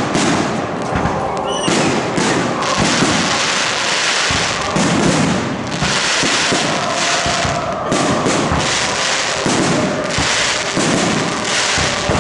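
Aerial fireworks display: shells bursting one after another in a dense, continuous barrage of bangs and crackling, with no let-up.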